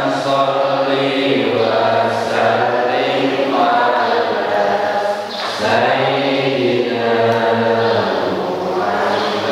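A man's voice chanting a prayer through a microphone, in long drawn-out notes that rise and fall.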